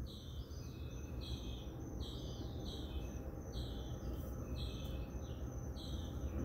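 Night insects chirping in a steady rhythm of short, high-pitched calls, a little more often than one a second, over a low steady rumble.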